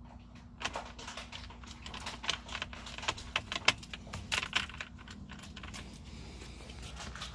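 Irregular sharp metallic clicks and rattles, many in quick uneven succession, over a steady low hum.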